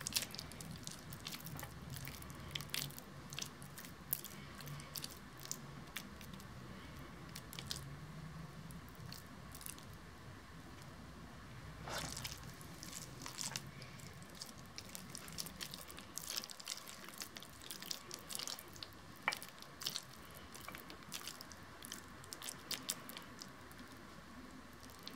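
Faint wet squishing and sticky clicks of hands kneading and pressing a grated-potato köfte mixture into patties, irregular throughout, over a faint steady hum.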